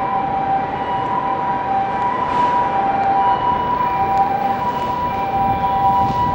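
Two steady electronic tones sounding together, held for a second or two at a time with short breaks, over the general noise of a railway station platform.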